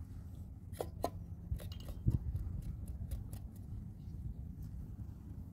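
Kitchen knife cutting eggplant held in the hand: a string of short sharp clicks and snips of the blade through the skin and flesh, the strongest about two seconds in, over a low steady rumble.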